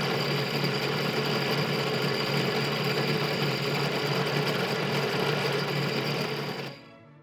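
Bench drill press motor running steadily, spinning a cast aluminium-bronze spinning top in its chuck while it is polished with paste on a paper towel. The motor stops near the end and the sound dies away quickly.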